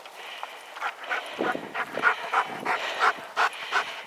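A dog panting in quick, regular breaths, about three a second.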